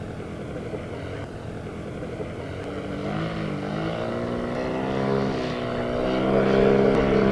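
Engine and propeller of a large radio-controlled scale model monoplane in flight, a pitched drone that grows louder as it approaches. Its pitch wavers for a couple of seconds midway, then holds steady as it passes close.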